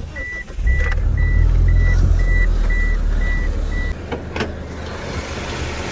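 1995 Eagle Talon's four-cylinder engine running steadily after a valve job with new exhaust valves, while a car's warning chime beeps rapidly and then stops. A couple of knocks follow about four seconds in, after which the engine sounds quieter.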